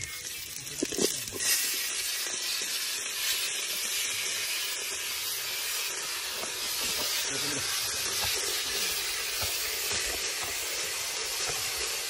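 Chopped cooked meat and offal spooned into a hot pot over a wood fire, with a few clatters of the spoon, then a steady sizzling hiss from the pot from about a second and a half in.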